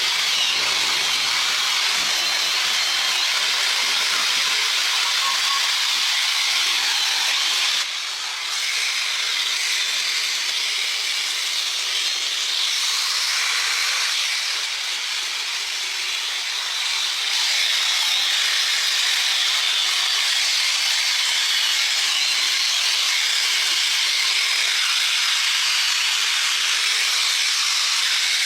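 A steady, loud hiss, dipping briefly about eight seconds in and again for a couple of seconds around fifteen seconds in.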